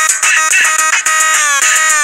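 Loud electronic dance music: a buzzy synthesized melody with sliding, falling notes over a fast, steady beat.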